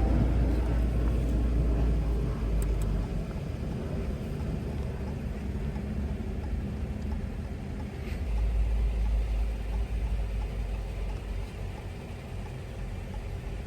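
Low rumble of a car, loudest at the start, easing off for a few seconds and swelling again about eight seconds in.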